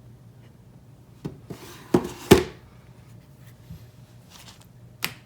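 Nokia 8600 Luna phone and battery being handled as the battery is fitted: a few sharp plastic clicks and knocks, two close together about two seconds in, the second the loudest, and one more near the end.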